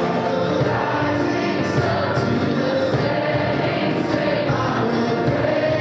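A large group of voices singing a worship song together in a revival service, many people singing at once.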